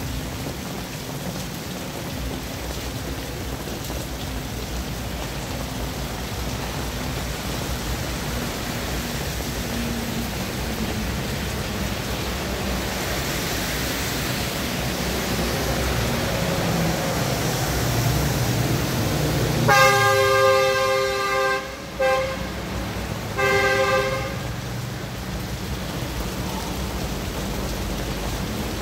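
Steady rain with traffic passing on a wet road, a vehicle's engine rumble building up. About two-thirds through, a vehicle horn honks: a long blast of about two seconds, a brief toot, then a second blast of about a second.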